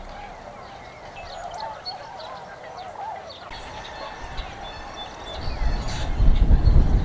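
A large flock of tundra swans calling, a steady chorus of many overlapping hooting calls with higher chirps scattered above it. A low rumble swells in the last second or so and becomes the loudest part.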